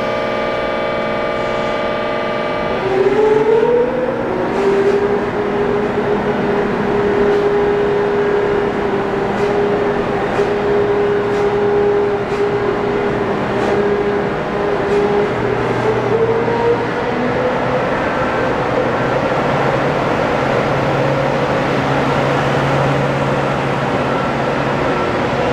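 Electric train's traction inverter and motors whining as the train pulls away. About three seconds in a steady hum of several tones stops, the whine rises briefly and then holds one steady tone. Near the end it climbs slowly again as the train gathers speed, over a continuous running rumble with light clicks.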